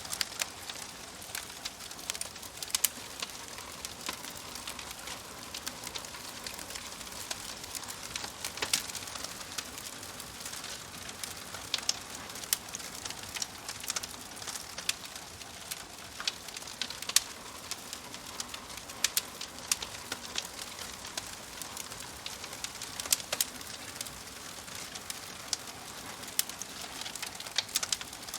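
Wood fire crackling, with irregular sharp snaps and pops over a steady soft hiss.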